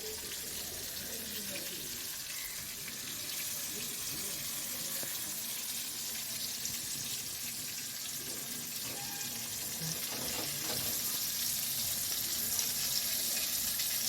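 Marinated tuna pieces frying in hot oil: a steady sizzle, a little louder from about ten seconds in.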